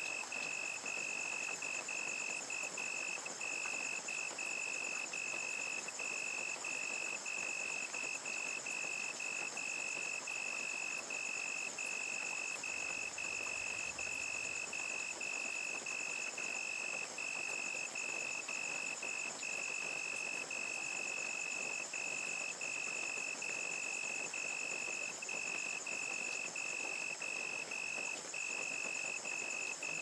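Steady rain falling, with crickets chirping in a regular, even rhythm, a little more than one chirp a second, over a higher continuous trill.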